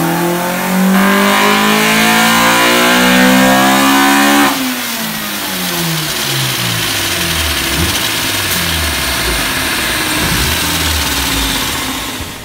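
Honda B18C GSR 1.8-litre four-cylinder with Skunk2 Tuner 2 camshafts pulling at full throttle on a chassis dyno, its pitch rising steadily and turning louder and harsher about a second in. At about four and a half seconds the throttle is cut at the top of the run and the revs fall away, the pitch sinking as the engine coasts down.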